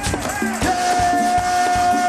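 Murga band music: drums and percussion keep a steady beat, and a long held note comes in about half a second in.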